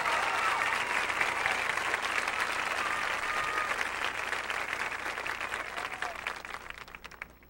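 Audience applauding and cheering from the stands, the clapping thinning out and stopping near the end.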